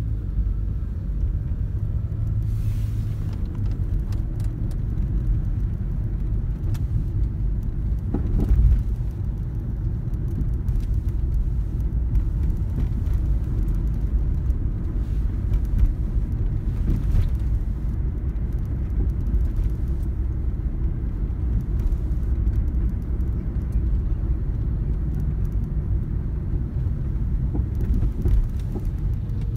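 Car driving in town traffic, heard from inside the cabin: a steady low rumble of engine and tyres, with one brief louder bump about eight seconds in.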